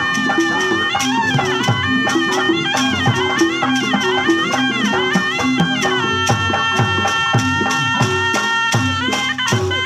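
Sundanese terompet, a double-reed shawm, playing a winding, ornamented melody with a long held note in the middle, over kendang drumming with quick strokes and low drum tones that slide in pitch.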